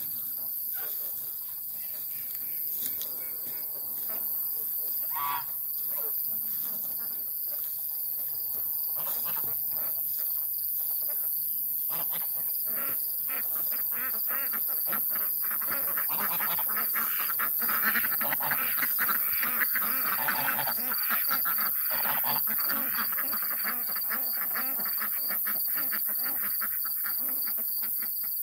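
A flock of domestic ducks and geese calling, with quacks and honks in quick succession that grow busier and louder about halfway through. Crickets trill steadily underneath.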